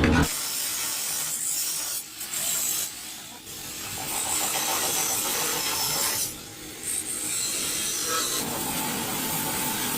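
Harsh, steady rasping noise of a tool working on material, in stretches of a few seconds broken by short pauses about two, three and six and a half seconds in.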